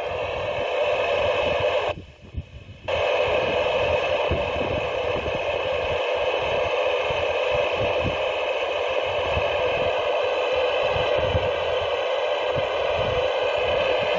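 Amateur radio transceiver's speaker putting out an interferer's keyed-up carrier: a steady mix of several held tones over hiss, with no voice. It cuts out for about a second two seconds in, then comes back.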